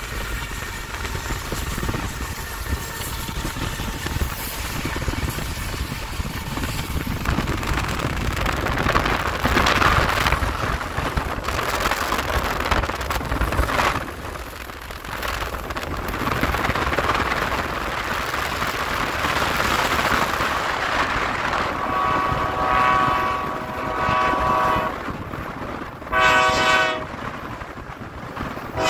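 Steady rumble and wind noise beside a moving freight train. Later the lead locomotive, BNSF C44-9W 768, sounds its air horn for a grade crossing: two long blasts, a short one, and the final long blast beginning at the very end.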